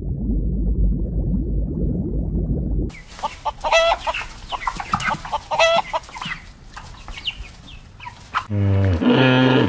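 Chickens clucking, with short rising calls, two of them louder, about 4 and 6 seconds in. Before them comes about three seconds of low rumbling noise, and near the end a loud, deep pitched sound cuts in.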